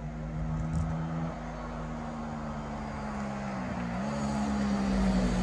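A car drives up the hairpin road toward the microphone, its engine note changing pitch as it climbs and growing steadily louder toward the end.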